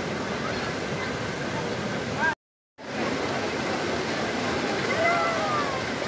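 Fast shallow river rushing over rocks, a steady rush of water with people's voices calling over it. The sound drops out completely for a moment about two and a half seconds in.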